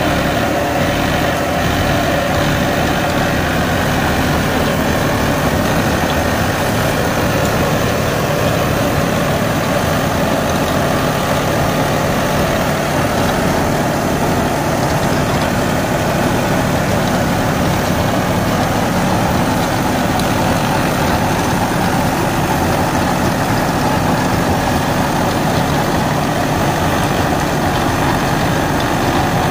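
Deutz-Fahr Agrolux 80 tractor's diesel engine running steadily under load while driving a rotavator that tills soil and mulches banana stalks, the churning of the rotavator blades mixed in with the engine.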